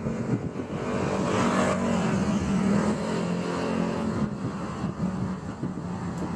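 A motor vehicle passing over a steady traffic rumble, its engine note rising and then easing off between about one and three seconds in.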